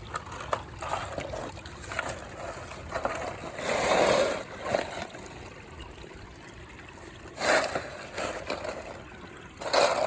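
Footsteps crunching and scuffing over the rocks of a creek bed at an uneven pace, the loudest a little before halfway, over the steady trickle of the creek.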